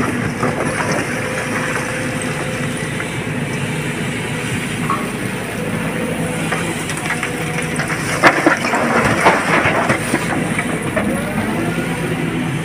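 Heavy diesel machinery of an excavator loading a truck, running steadily, with a cluster of loud knocks and clatter about eight to nine and a half seconds in.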